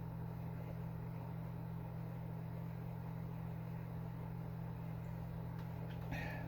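Steady low hum of a refrigerator's compressor running, even in level throughout. A brief soft eating or handling sound comes near the end.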